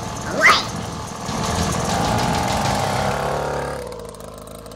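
Small mini dirt bike engine running, then rising in pitch as it revs and fading away near the end. A short swooshing glide about half a second in is the loudest moment.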